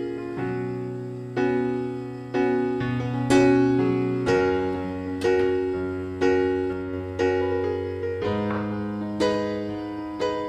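Background music: a slow piano tune, a new note or chord about every second over held bass notes.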